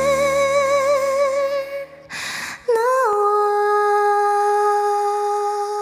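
A woman singing two long held notes with vibrato, the first over a low backing accompaniment, with a short breath between them about two seconds in.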